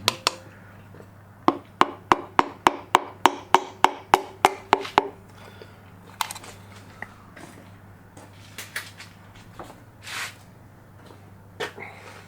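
A run of about a dozen sharp, evenly spaced taps, roughly three a second, from hand-tool work on an engine being assembled, then a few scattered knocks and clunks of parts being handled.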